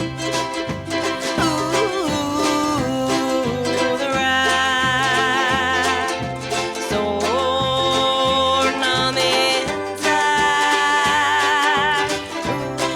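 Ukulele-led string band playing a country-style tune, the opening of a song just counted in. A bass alternates between two notes on every beat under the strummed strings. A lead line of long, wavering notes comes in about four seconds in, and again about ten seconds in.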